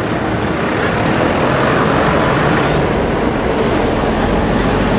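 Diesel tractor engines running steadily as tractors pull out one after another onto the road.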